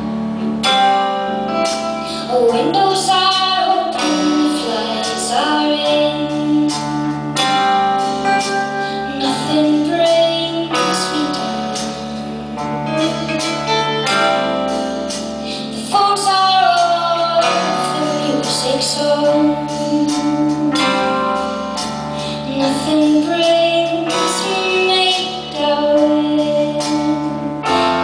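A song performed live: a woman singing the lead melody over a band with drum kit and keys, picked up from the audience in a concert hall.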